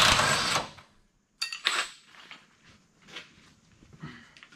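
A loud hiss that stops about a second in, then a sharp metallic clink and a few light clicks of metal tools being handled.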